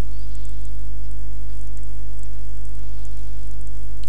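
Steady electrical hum in the recording: a loud, unchanging low buzz with many evenly spaced overtones.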